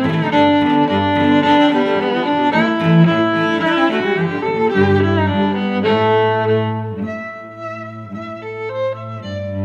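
Background instrumental music with bowed strings, violin and cello, playing held notes. It turns quieter and thinner about seven seconds in.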